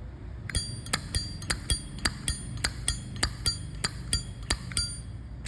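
Brass Zippo lighter's lid snapped open and shut over and over, a fast run of sharp metallic clicks with a ringing ping, about five a second. The lighter's cam spring is a little weak, so its click is not very loud.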